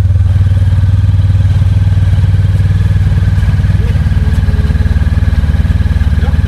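Motorcycle engine running steadily at an even speed, loud and deep, with fast, regular firing pulses.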